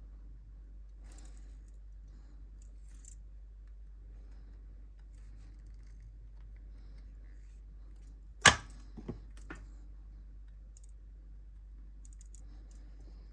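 Small clicks and taps of a soldering iron and circuit board being handled during hand soldering, with one sharp click about eight and a half seconds in and two smaller ones just after, over a steady low hum.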